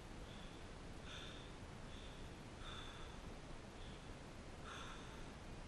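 A cyclist's breathing, faint and fast at about one breath a second, over a steady low muffled rumble of the ride.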